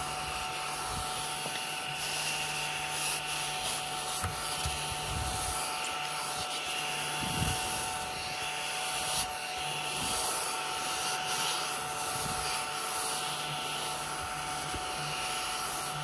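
ODISTAR mini desktop vacuum cleaner running on two AA batteries: a small motor gives a steady whine with an airy hiss. A few soft rubbing bumps come as it is pushed across a desk mat.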